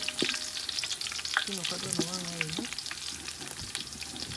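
Chopped onions frying in oil in a pot, sizzling with fine, steady crackling as they brown. A wooden cooking stick stirs them.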